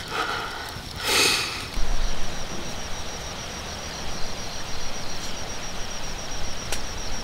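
Outdoor night ambience: a short rustle about a second in, then a high, rapidly pulsed insect trill that runs on over a low hiss.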